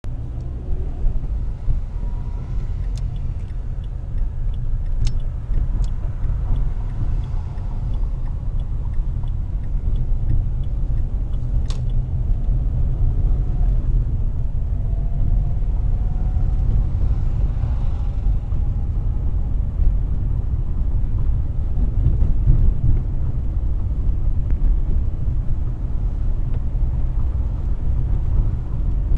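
Car driving at moderate speed: a steady, deep rumble of engine and road noise picked up by a car-mounted camera, with a few faint sharp clicks along the way.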